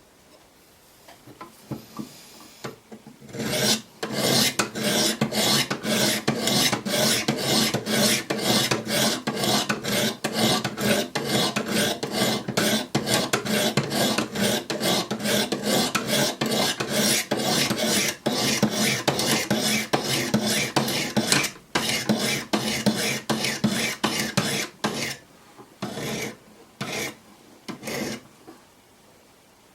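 Coarse 100-grit diamond stones of a Wicked Edge guided sharpener rasping along a D2 steel knife blade in quick repeated strokes, about three a second. Faint strokes begin about a second in, the steady run starts about three seconds in, and it thins to a few separate strokes near the end.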